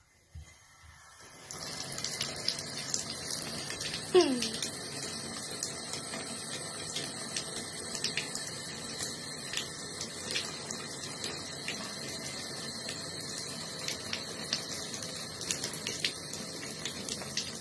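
Bathtub tap running, a thin stream of water splashing into the tub, starting about a second and a half in. About four seconds in, a short sound falls sharply in pitch.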